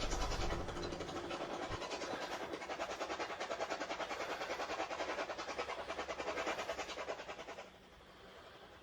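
Spirit box radio sweeping through stations: choppy static pulsing about five times a second, with a low rumble in the first second or so. It cuts off near the end.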